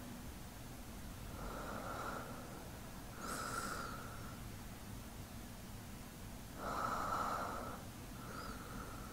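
A man's slow, calm sleeping breaths, four soft breaths drawn in and let out at an unhurried pace, the loudest about seven seconds in.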